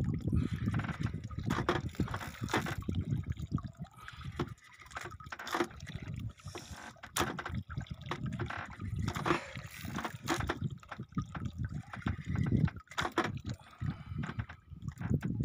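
Water sloshing and lapping against a small outrigger boat's hull, with irregular knocks and clicks.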